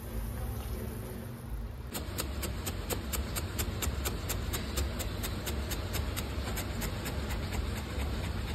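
Chef's knife chopping fresh coriander leaves on a bamboo cutting board: a fast, even run of knocks, about four a second, starting about two seconds in. Before that, a pot of rasam boiling on the gas stove gives a steady hiss with a low hum.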